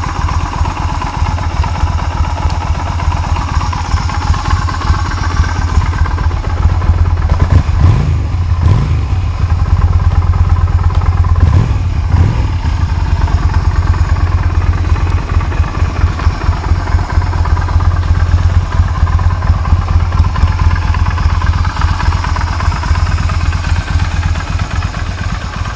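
Yamaha SRV250's air-cooled V-twin motorcycle engine idling after starting, with three short blips of the throttle about eight, nine and twelve seconds in.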